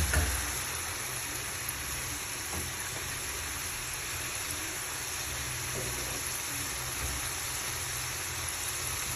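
Steady sizzling hiss of food frying in hot oil, with a brief knock right at the start.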